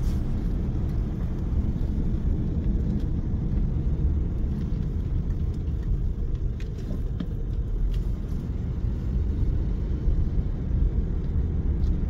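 Steady low rumble of a car driving slowly on asphalt, heard from inside the cabin: engine and tyre noise.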